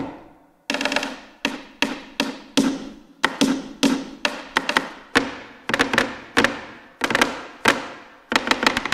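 Sampled flamenco dancer's taconeo: flamenco shoes stamping heel and toe on a wooden floor, played from a keyboard through a virtual instrument. The stamps come in quick rhythmic runs with short gaps, each strike sharp with a brief ring.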